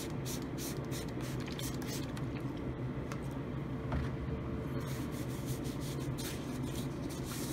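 Trigger spray bottle of alcohol squirting rapidly, about four squirts a second, stopping about a second and a half in, then gloved hands rubbing the alcohol over the arms with a few more scattered hissing strokes. A steady low hum runs underneath.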